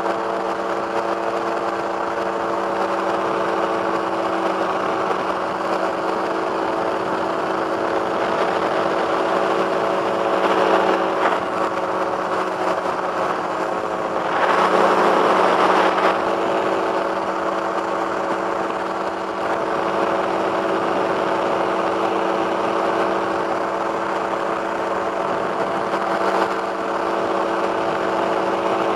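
Two-stroke microlight engine running steadily in flight, its drone mixed with a rush of air noise. About halfway there is a louder rush of noise lasting a second or two.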